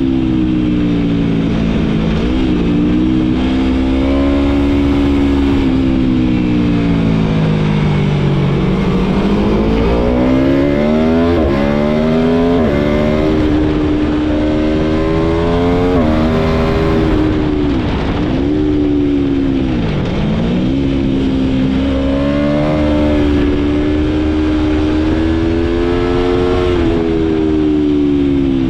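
Aprilia Tuono V4's V4 engine heard onboard at speed, revving up and down: the pitch climbs under acceleration, drops sharply at several quick upshifts, and falls in a few deep dips as it slows, over a low rush of wind.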